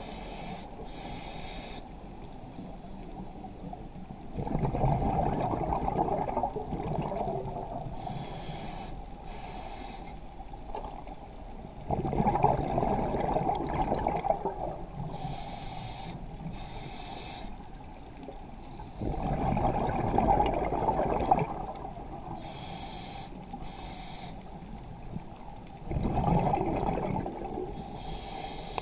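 Scuba diver breathing through a regulator underwater: a short hiss on each inhale, then a longer, louder rush of exhaust bubbles on each exhale, about one breath every seven seconds.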